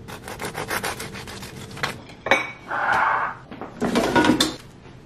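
Kitchen counter handling sounds: about two seconds of quick rasping, rubbing strokes, then a sharp knock and a clatter of dishes near the end.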